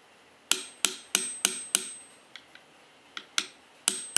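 Small hammer tapping a steel pin into a Glock 17 Gen 4's polymer frame, which is brand new, so the pin is tapped in rather than pushed. There is a quick run of five sharp metallic taps about a third of a second apart, a pause with two faint ticks, then a few more taps near the end with a thin high ring after them.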